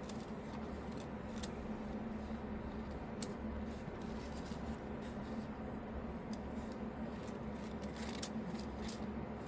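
Faint clicks and rubbing of PLA filament being pushed by hand into a 3D printer's feeder toward the extruder, over a steady low hum.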